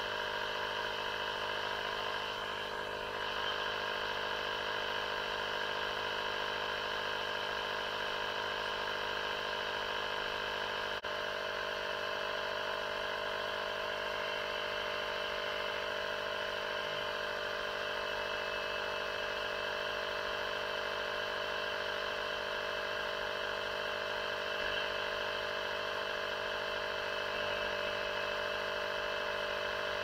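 Small 12-volt air compressor running steadily while inflating an old tractor tire, its motor giving an even, unchanging drone; a single click about eleven seconds in.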